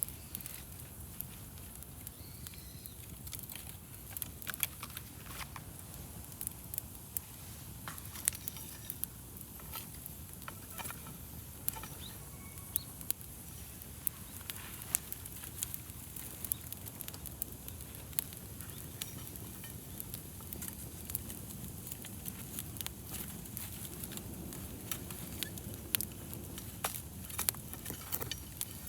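Wood campfire burning, with frequent irregular sharp crackles and pops over a low steady rush.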